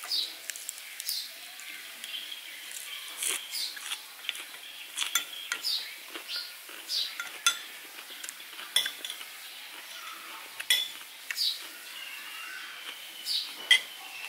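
Spoon and cutlery clinking and scraping against plates and bowls during a meal, a sharp clink every second or so.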